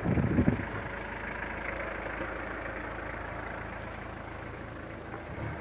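A vehicle engine running steadily, with a louder low rumble in the first half second.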